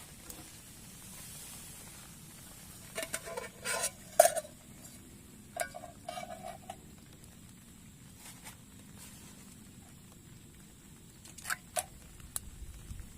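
Metal utensils clinking and scraping against cookware in three short clusters, over a faint steady hiss.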